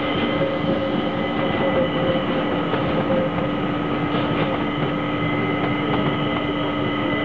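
ÖBB Talent electric multiple unit running past, its electric drive giving a steady whine of several held tones over the rumble of the wheels on the rails.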